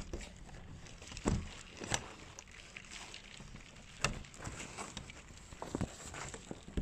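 Hail falling outside, heard through a closed window as a soft steady hiss, with a few scattered sharp taps.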